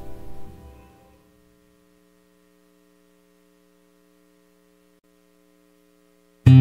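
Background music fading out over the first second, leaving a faint, steady lingering hum of held tones, then a new piece of music with acoustic guitar strumming starting abruptly near the end.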